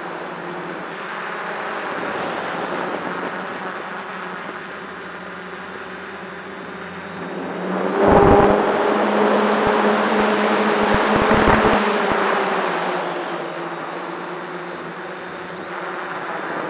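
F550 hexacopter's six brushless motors and propellers whirring steadily, heard from its onboard camera. About eight seconds in, while flying low over the ground, it grows louder and rougher, with wind buffeting the microphone. It eases again after a few seconds.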